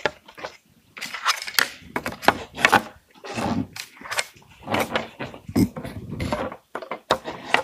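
Small flat wooden model parts clacking, knocking and scraping on each other and on the workbench as cross-member feet are picked up and slotted into a longitudinal piece; irregular handling noise with many sharp knocks.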